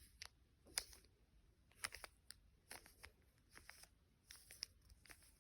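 Plastic Rubik's cube being turned layer by layer: a faint, irregular series of short clicks and clacks as the layers snap round.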